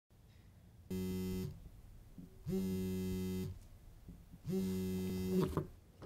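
Mobile phone buzzing on vibrate for an incoming call: three buzzes of about a second each, two seconds apart, each swelling up in pitch as it starts. Near the end of the third buzz there is a rattle of the phone being picked up.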